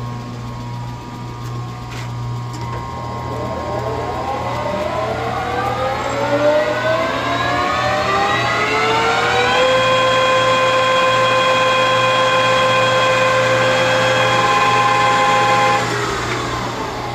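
Harrison M450 gear-head lathe spinning up to 1,000 RPM: its gear whine rises in pitch for several seconds, runs steady, then falls away near the end as the spindle winds down, over a steady low hum.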